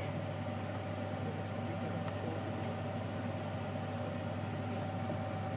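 A steady mechanical hum with a constant whine over it and an even hiss beneath.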